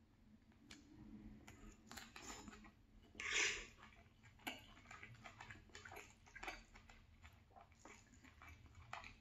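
Close-miked chewing of a chicken and vegetable stir fry: irregular wet mouth clicks and crunches, with one louder crunch or slurp about three seconds in.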